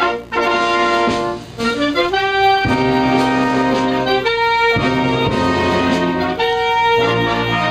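Brass band playing a slow tune of held notes and chords, dipping briefly about a second and a half in.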